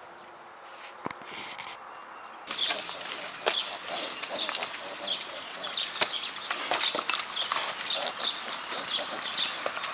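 Pigs and piglets moving about in a pen: a run of short high squeaks with scattered knocks, which starts abruptly a couple of seconds in after a quieter stretch.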